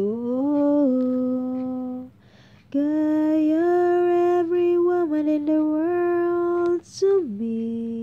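A woman singing unaccompanied, holding long drawn-out notes. There is a short breath about two seconds in, then a longer phrase, and a final held note near the end.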